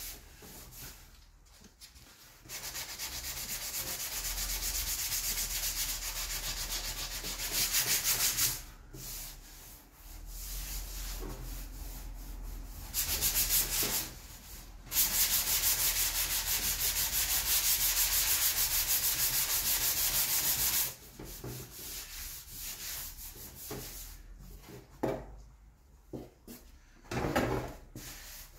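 Sanding sponge rubbed by hand over a plastic motorcycle fairing in quick strokes: a steady, hissing scrape for several seconds at a time, broken by short pauses. Near the end it turns into shorter, separate strokes.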